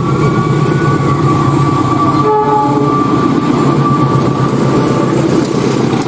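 Indonesian KAI diesel-electric locomotives hauling a passenger train past close by, engines running loud with a steady rumble and rattle from the train. A long, high horn note is held over it and fades out about five seconds in.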